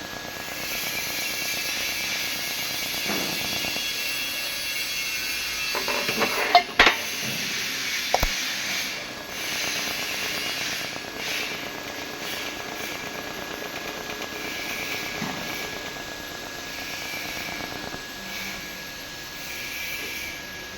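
TIG welding arc hissing steadily, with a few sharp clicks between about six and eight seconds in.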